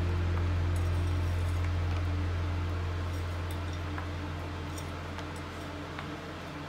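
Background music: a long held low note with a few steady overtones, slowly fading.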